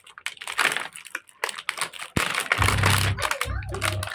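Packaging being handled during unboxing: irregular crinkling and clicking of wrapping and cardboard. About two seconds in there is a sharp click, after which a low hum comes and goes in short stretches.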